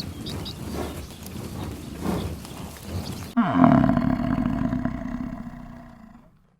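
Rough, noisy animal sounds with a few brief high chirps, then about three seconds in a cow gives one long, low moo that dips in pitch at the start and fades out.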